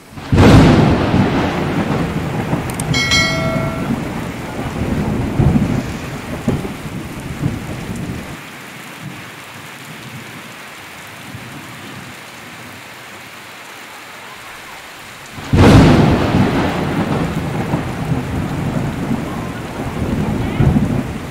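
Heavy rain pouring steadily, broken by two loud thunderclaps. The first comes just after the start and rumbles away over several seconds; the second comes about fifteen seconds in.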